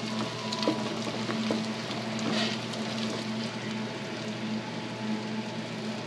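Chopped bacon frying in a pot of deep, vigorously bubbling fat: a steady sizzle scattered with small crackles and pops, over a low steady hum.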